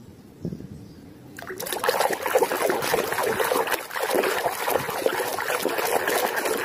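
Water sloshing and trickling in a plastic tub as a hand scrubs a muddy toy under the surface. It starts about a second and a half in.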